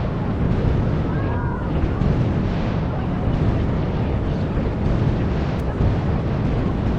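Fireworks going off in a continuous rumbling barrage of closely spaced booms, heard from among the spectators, with crowd voices mixed in.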